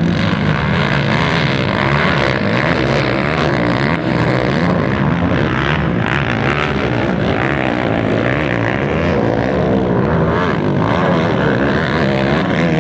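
Several quad ATV engines racing together, their overlapping pitches rising and falling as the riders work the throttles.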